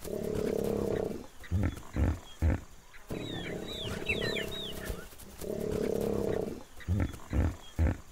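Lion growling: a drawn-out deep call of about a second, then three short, deep grunts, the whole sequence heard twice. Quick high bird chirps sound with each long call.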